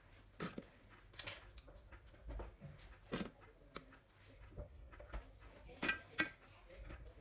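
Chopped leek pieces dropped by hand into a Thermomix's stainless-steel mixing bowl, giving soft, irregular taps and knocks as they land on the metal and on each other, about a dozen in all.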